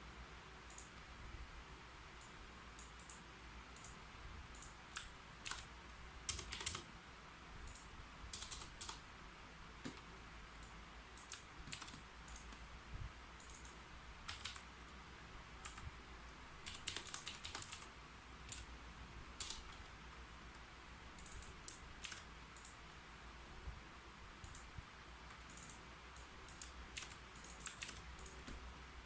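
Keyboard typing: irregular keystroke clicks in short runs and pauses, with a quick burst of keystrokes around the middle.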